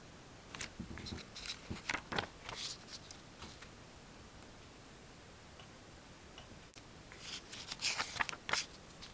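Hands handling a CD album's packaging, making short clicks and rustles in two bursts, one near the start and one near the end.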